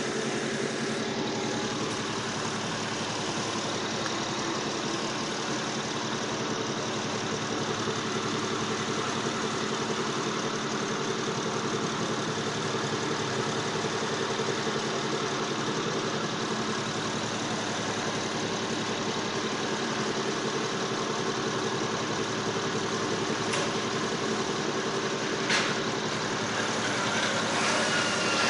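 Car engine idling steadily, with two short clicks near the end.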